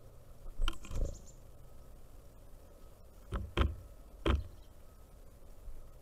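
Pileated woodpecker pecking at a wooden platform feeder: sharp knocks, two a little under a second in and three more close together around the middle.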